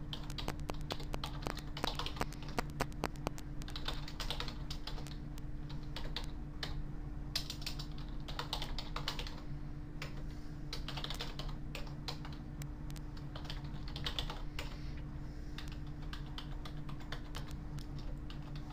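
Typing on a computer keyboard: runs of keystrokes with short pauses between them, over a steady low hum.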